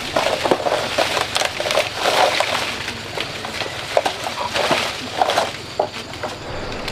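Leaves and branches of a persimmon tree rustling, with many irregular sharp cracks and snaps, as a person moves through the foliage.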